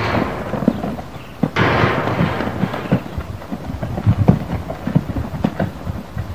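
A horse's hooves thudding on loose sand as it side-passes quickly under a rider: an irregular run of dull thuds. A brief rush of noise comes at the start and a louder one about a second and a half in.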